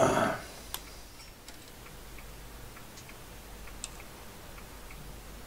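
Faint regular ticking, about two ticks a second, over a low steady background, after a short louder noise right at the start.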